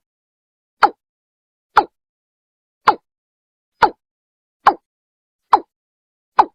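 Watercock (Gallicrex cinerea) call played as a lure recording: short notes falling in pitch, repeated about once a second, eight in all, with dead silence between them.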